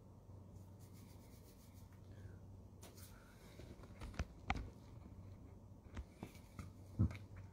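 Handling noise on a smartphone: fingers rubbing and tapping on the phone close to its microphone, with a few soft knocks and thumps about halfway through and again near the end, over a faint low hum.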